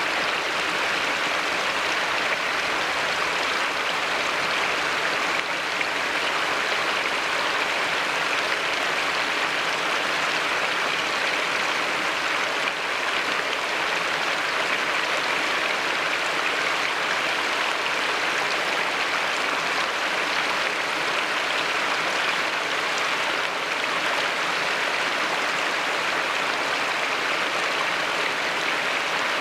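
Low-flow river cascade: water spilling over a few scattered rock ledges in short 2–5-foot drops, making a steady rushing hiss that does not let up.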